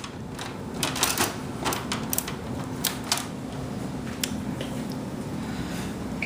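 Scattered light clicks and taps of computer parts being handled, bunched in the first half, over a faint steady hum.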